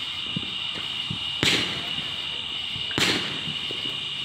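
Aerial fireworks going off: two sharp bangs about a second and a half apart, with fainter pops and crackles between them, over a steady high-pitched drone.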